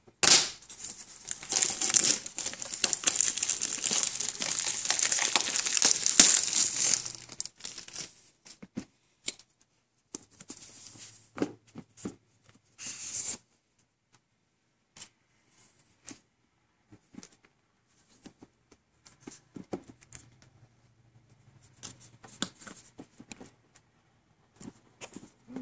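Plastic wrapping being torn and crinkled off a cardboard box for about the first seven seconds, then scattered light taps and rustles as hands handle the box.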